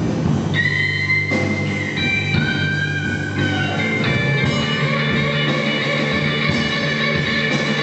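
Blues-rock band playing, with a guitar holding long notes, some bent upward, over a steady low bass line.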